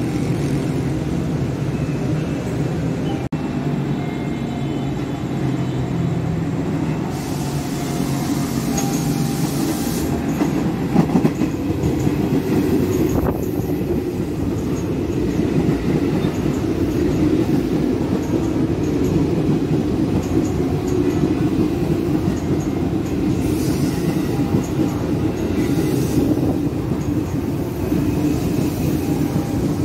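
A KRL commuter electric multiple unit, a former JR 205 series, running along the platform with a steady rumble of wheels on rails.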